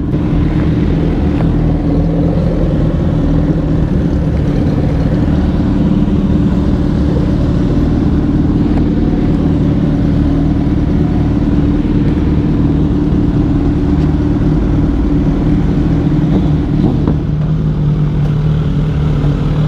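Sport bike engines running at idle and low speed: the rider's own motorcycle rolling slowly with other motorcycles idling alongside, a steady engine note with no revving.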